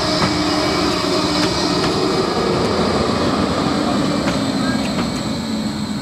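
Bombardier Flexity 2 tram passing close by, a steady running noise of wheels on rail with a faint hum from its equipment.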